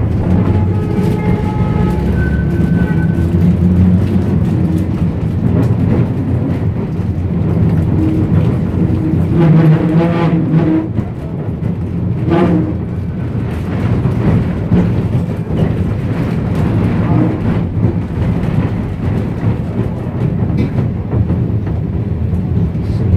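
Electric tram running, heard from inside its wooden saloon: a steady rumble of wheels on rail with motor whine, scattered clicks and rattles, and a couple of brief higher tones about ten and twelve seconds in.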